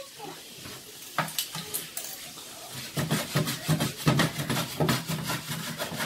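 A slotted spatula knocking and scraping against a frying pan as shrimp are stirred. There are a few separate knocks at first, then about three seconds in comes a quick run of repeated strokes.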